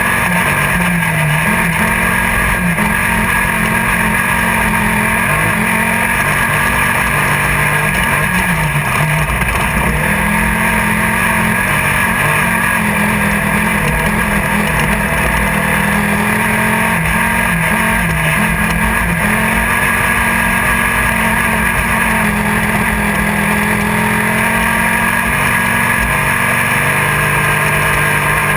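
Engine of a 1600-class off-road race buggy heard from inside the car, running hard with its pitch rising and falling slightly as the throttle changes, under a constant rushing rattle-and-road noise.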